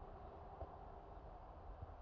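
Near silence: faint outdoor background with a low rumble and a couple of faint soft thumps, one about half a second in and one near the end.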